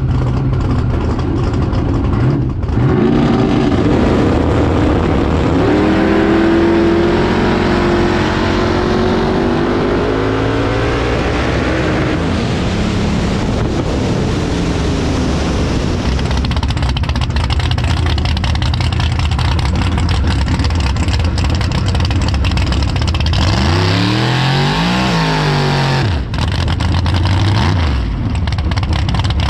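Drag car's V8 engine at full throttle, its pitch climbing steadily as the car pulls hard down the strip, then running at a steadier pitch. Near the end the engine pitch sweeps down and back up.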